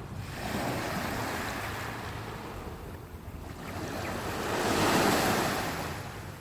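Sea waves breaking and washing onto the beach: two swells of surf, the second, about five seconds in, the louder.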